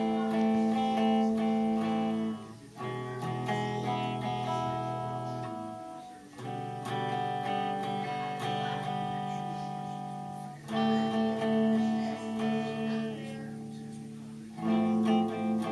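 Guitar played in held, ringing chords, changing to a new chord every three to four seconds, each one fading before the next is struck.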